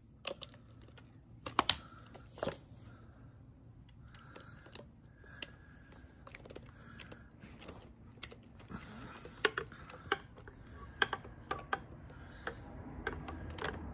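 Irregular sharp clicks and metal clinks of a hand ratchet and long socket extension working bolts on an engine, with a quick cluster of clicks about a second and a half in and a scattered run of them in the second half.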